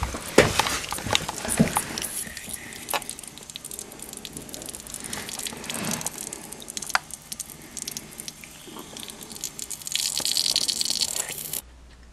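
Water spraying and sputtering from a leaking dishwasher water inlet valve under hot-water line pressure, a crackling, pattering hiss. The valve is leaking from its solenoid. The hiss grows louder near the end and then cuts off suddenly.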